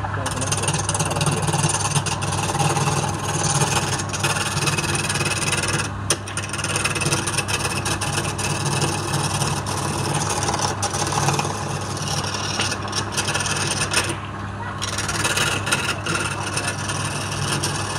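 Wood lathe running with a steady motor hum while a hand-held flat scraping tool rubs against the spinning palm-wood cylinder, making a continuous rasping scrape. The scraping breaks off briefly twice.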